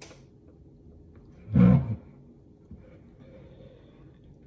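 A person's short, loud huff of breath, about one and a half seconds in, while screwing the lid onto an overfilled tumbler.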